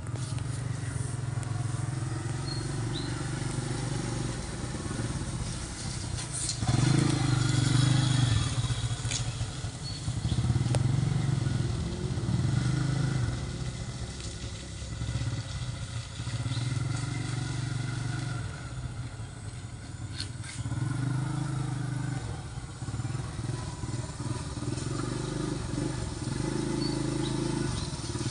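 Small underbone motorcycle engine running at low speed, swelling louder and fading several times as it is ridden around and past.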